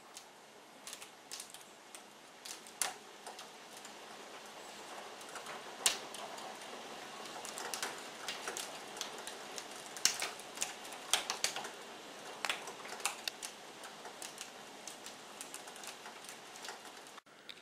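Heavy hail falling and pelting a window: a steady hiss with sharp, irregular clicks of hailstones striking, busiest in the middle. It breaks off abruptly near the end.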